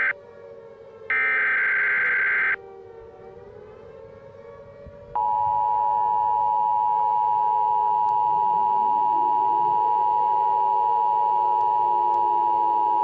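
An Emergency Alert System SAME header, a harsh digital data burst lasting about a second and a half, sounds about a second in. About five seconds in, the EAS two-tone attention signal starts, a steady 853/960 Hz dual tone held for about eight seconds. Under both, a quieter siren slowly wavers up and down.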